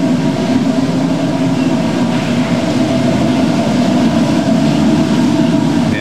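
Water-driven stone flour mill running: the millstone turning and its water wheel below make a steady, loud rumble as wheat grain feeds in to be ground into flour.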